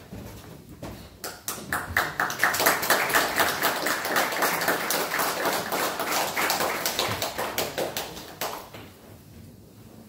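Small audience applauding: the clapping starts about a second in, builds quickly, holds steady, then dies away near the end.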